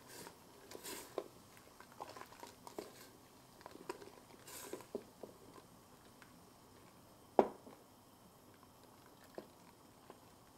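Quiet handling of a stainless stockpot and kitchen utensils: scattered soft taps and clicks, with one sharper click about seven seconds in.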